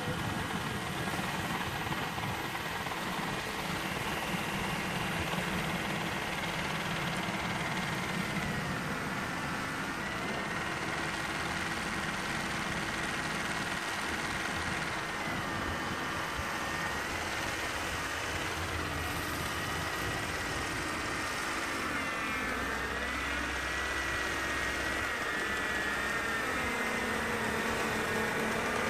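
Motor of a 3D-printed RC mini snow blower running steadily, a high whine that wavers up and down in pitch as it works through snow, getting a little louder near the end.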